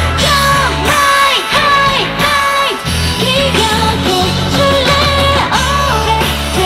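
Live pop-rock band music with a woman singing the lead into a microphone, held and sliding sung notes over steady bass. The bass drops out for about a second and a half shortly after the start, then comes back in.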